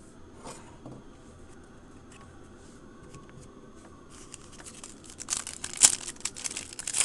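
Foil wrapper of a 2010 Donruss Elite Extra Edition baseball card pack being torn open and crinkled by hand. It starts faintly about four seconds in and gets loud near the end, with one sharp crackle.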